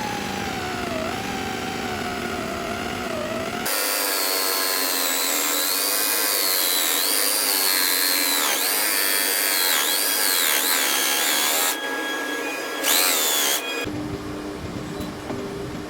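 Electric power tool motor running with a wavering whine, its pitch dipping and recovering as it works under load. About four seconds in the sound jumps to a louder, higher whine, which cuts off near the end.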